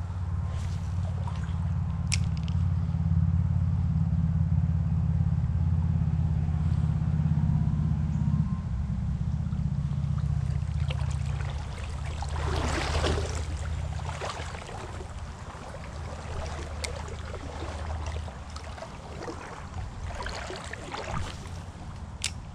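Shallow stream trickling and gurgling under a low rumble that is strongest for the first eight seconds or so, then weakens and fades. A brief louder burst of noise comes about twelve seconds in.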